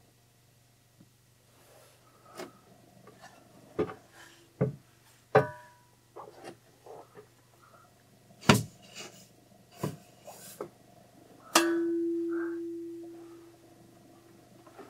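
Metal tools knocking and clanking about ten times, ending in one loud clang that rings on with a single steady tone and fades over a couple of seconds.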